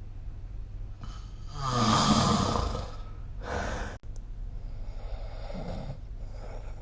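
A sleeping person snoring: one loud, rattling snore about two seconds in, then shorter and quieter breaths over a steady low hum. The sound cuts out for an instant about four seconds in.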